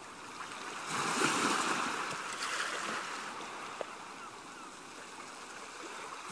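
Ocean waves washing in: a swell of surf noise that rises about a second in and slowly ebbs away.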